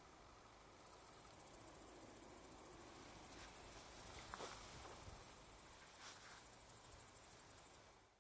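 A cricket chirping: a high, rapid, evenly pulsed trill that starts about a second in and stops shortly before the end.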